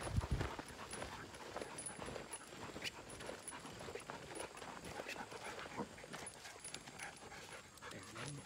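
Footsteps of a person walking with leashed hog dogs on a dirt trail: irregular scuffing steps and paws, with rustling and clinking of gear. Near the end a dog starts to whine.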